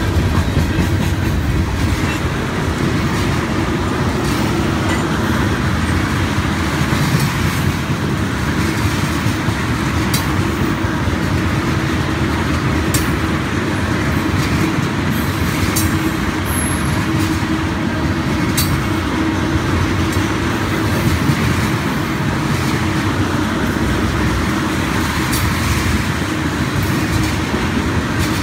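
Freight train of tank cars rolling past, a steady rumble of steel wheels on the rails with scattered sharp clicks as the wheels cross rail joints.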